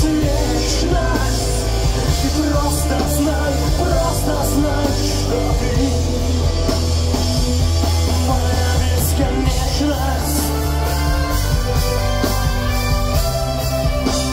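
Pop-punk band playing live and loud: electric guitars, bass and drums with crashing cymbals, heard through a phone recording in a packed club.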